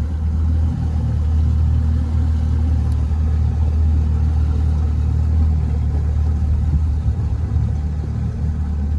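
Boat's outboard motor running steadily at low speed while the boat moves slowly, a constant low rumble with wind and water noise over it.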